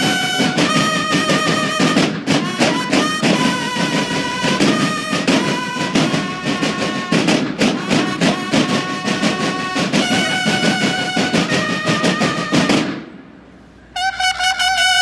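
Mexican banda de guerra (drum and bugle corps) playing a military march: bugles sounding a melody of held notes over massed field-drum rolls and beats. Near the end the band stops for about a second, then the bugles come back in on a held note.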